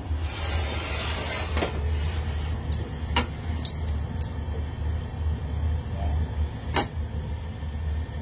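Steady low rumble of a gas stove burner heating an empty steel wok. A brief hiss comes about half a second in, and a few sharp clicks sound over it, the loudest about three seconds and about seven seconds in.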